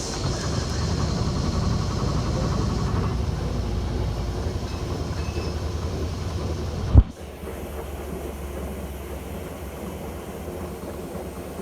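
Electrolux LF75 top-loading washing machine running with a steady mechanical rumble. About seven seconds in there is a sharp knock, after which it goes on more quietly.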